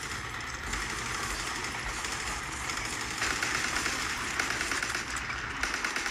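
Rapid machine-gun fire, a fast dense rattle of shots, getting louder about three seconds in.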